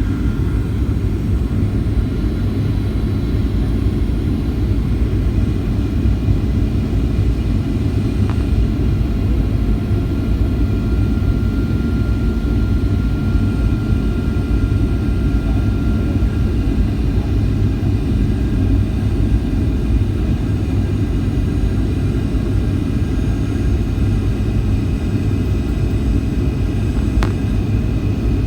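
Steady low rumble of engine and airflow noise heard inside the cabin of a flydubai Boeing 737 in flight. A faint thin tone sounds for a few seconds midway, and there are two faint ticks.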